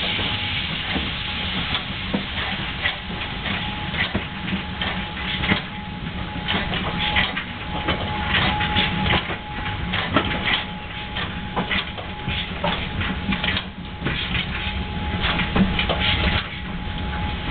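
A train hauled by the steam locomotive BR 64 518 running on the rails: a steady rumble with irregular clicks and clacks of the wheels and a thin steady tone throughout.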